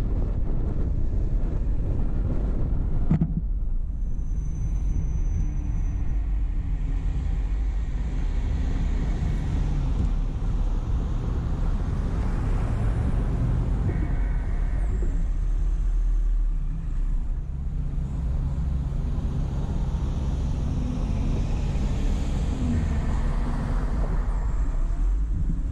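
A car driving, with steady low road and engine rumble throughout. A rushing wind noise on the microphone cuts off abruptly about three seconds in.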